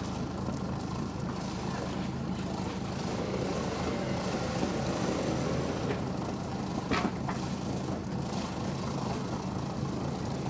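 Fishing boat's engine idling steadily, an even low drone. A single short knock sounds about seven seconds in.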